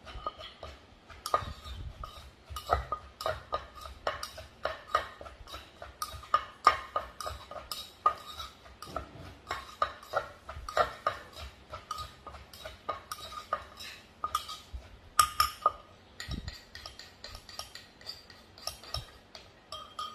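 Green papaya salad being pounded and tossed in an earthenware mortar: a wooden pestle knocks in a steady rhythm, about two to three times a second, while a spoon turns the salad and clinks against the mortar.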